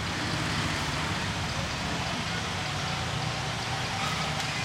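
Steady background noise of road traffic: a constant low rumble under an even hiss, with no animal calls standing out.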